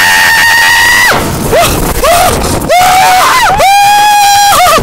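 A rider screaming in fright on a looping amusement ride: a long, high scream about a second long at the start, a few shorter cries, then another long scream near the end.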